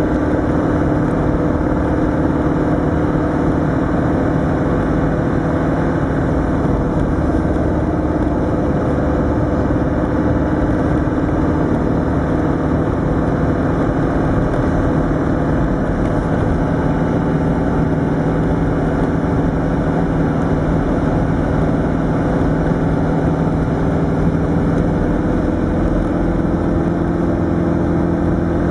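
Land Rover Defender 110's 300Tdi 2.5-litre four-cylinder turbo-diesel engine droning steadily at a near-constant cruising speed, heard from inside the cab over a continuous rush of road noise.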